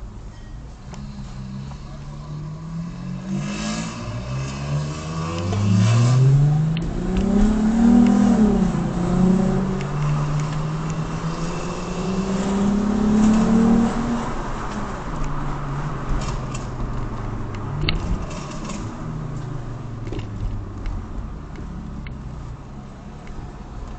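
Car engine and exhaust accelerating hard, the note climbing, levelling off, climbing again about halfway through, then falling away as the throttle is lifted, with a few short pops and crackles on the overrun.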